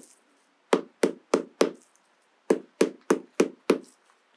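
Claw hammer striking the end of a dried corncob to drive it onto a steel rod as a handle: a run of four quick, dull knocks, a short pause, then six more.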